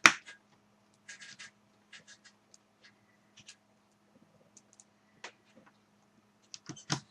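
Irregular sharp clicks and light taps of plastic and small metal parts being handled during laptop reassembly, with one loud click at the start, a quick run of small clicks about a second in, and another cluster of clicks near the end.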